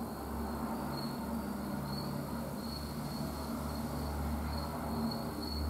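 Quiet pause: a faint steady low hum, with a faint high-pitched chirp repeating every half second to a second.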